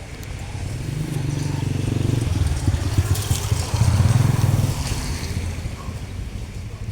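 A motor vehicle's engine passing by, growing louder to a peak about halfway through and then fading.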